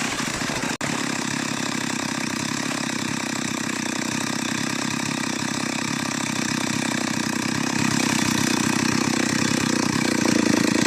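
Two-stroke chainsaw engine running steadily, with a brief dropout about a second in and a small rise in level near the end.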